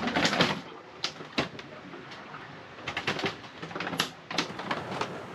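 Irregular knocks, clicks and creaks from the cabin of a Najad 440 sailboat rolling heavily in a quartering sea, as loose things such as a plastic water bottle shift about on the cabin sole.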